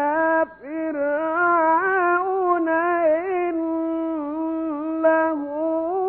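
A male Quran reciter chanting verses in long, ornamented melodic phrases that hold and bend single notes. He breaks off briefly for breath about half a second in.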